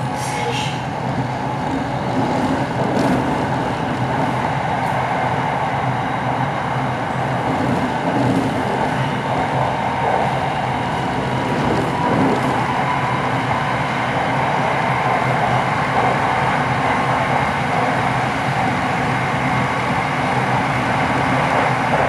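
SRT Red Line electric commuter train running at reduced speed, a steady rumble of wheels and running gear with a faint motor whine that rises slightly in pitch. The slow running follows the theft of the line's signalling cables.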